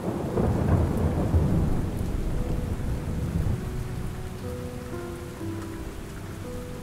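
Thunder rumbling over steady rain, the rumble easing off over the first few seconds. Faint, soft held music notes come in about halfway through.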